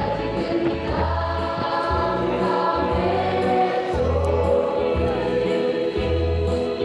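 Large mixed choir singing, amplified over loudspeakers, with low bass notes underneath.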